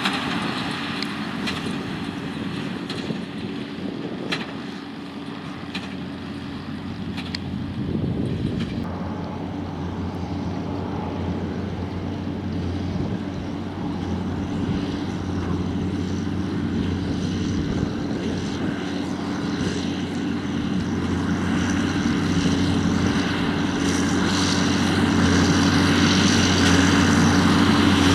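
John Deere tractor's six-cylinder diesel engine running at a steady working speed with a droning hum, growing louder over the last half as it draws closer. A few light clicks or knocks come in the first several seconds.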